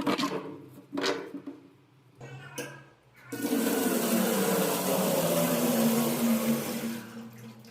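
A few short knocks, then about three seconds in, water starts rushing hard into a kitchen sink and down its drain, running steadily and fading near the end.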